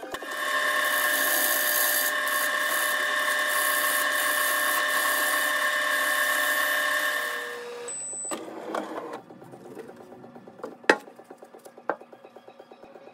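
Grizzly G0462 variable-speed wood lathe spinning an aromatic cedar bowl blank while a gouge cuts its face: a steady high whine with a hiss of cutting. It stops near 8 seconds, and a single sharp click follows a few seconds later.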